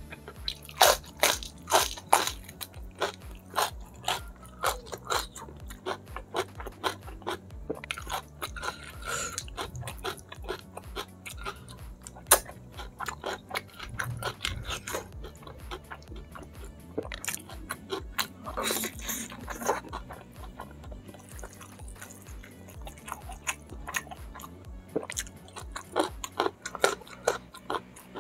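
Close-miked mukbang eating: crisp crunching bites of a raw winged bean, then chewing of fish-head curry eaten by hand, a steady run of sharp crunches and clicks.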